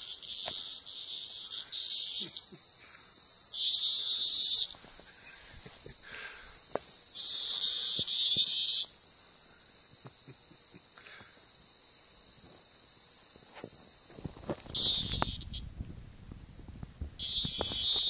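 A cicada buzzing in short loud bursts, about five of them, up to a second and a half long, as a cat paws at it. Under them a steady high insect trill runs throughout.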